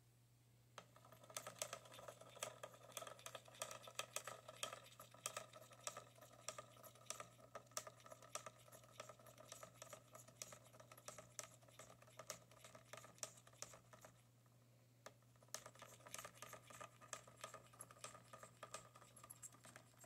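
Cockatiel chomping on the wooden beads of its play gym with its beak: a quick run of small crunching clicks, several a second. The clicks stop for about a second about three-quarters of the way through, then start again.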